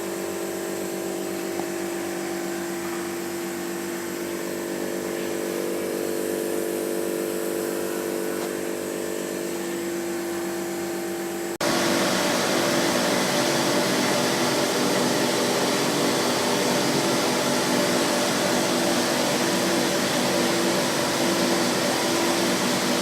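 Steady machine hum with a pitched drone. About halfway through it changes abruptly to a louder, noisier steady running sound.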